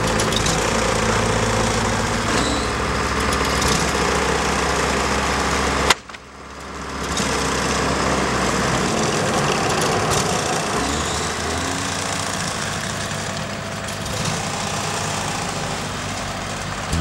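Portable band sawmill's engine running steadily. The sound cuts out suddenly about six seconds in, then builds back up over about a second.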